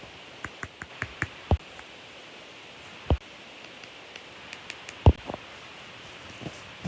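Small objects handled and set down: scattered clicks and taps, with louder knocks about a second and a half, three and five seconds in, over a steady hiss.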